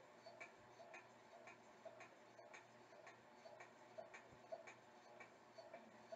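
Near silence with a faint, regular ticking about twice a second.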